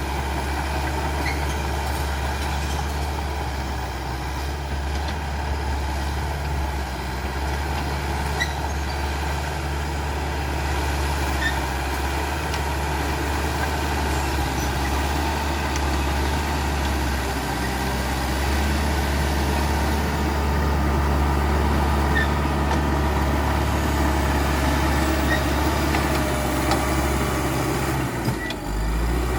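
CAT D5K XL bulldozer's diesel engine running steadily with a low drone, growing a little louder past the middle and dipping briefly near the end.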